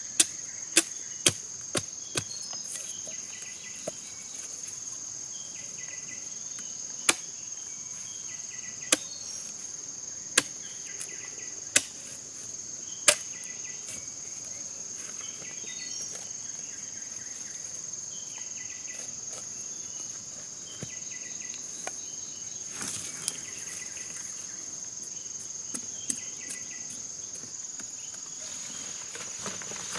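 A large knife chopping into giant taro corms and stalks: five quick chops in the first two seconds, then single chops about every one and a half seconds until around the halfway point, and a few faint knocks later. A steady high-pitched insect drone runs under it.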